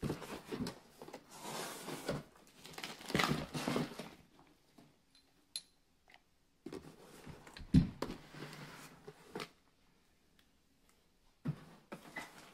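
Cardboard box flaps and plastic packing rustling and crinkling as the box is opened and parts are handled, in uneven spurts with short pauses. A sharp thump about eight seconds in is the loudest sound.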